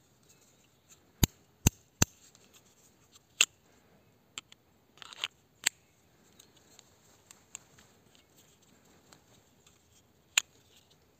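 Tonife Nova fixed-blade knife snapping in and out of its Kydex sheath: sharp single clicks of the sheath's retention, three in quick succession about a second in, then a few more spaced out, with a short scrape about five seconds in.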